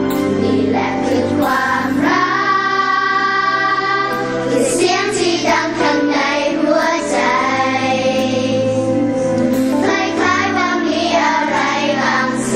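Live pop song: a children's choir singing together with a male lead singer over instrumental backing.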